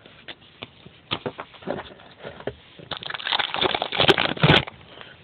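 Baseball trading cards being handled: scattered light flicks and clicks of cards, then a denser rustle with sharp clicks for under two seconds starting about three seconds in.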